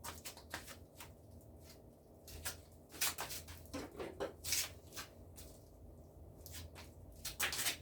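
Leafy greens being picked and handled by hand: irregular rustles and crisp snaps of leaves and stems, loudest about three seconds in and again near the end.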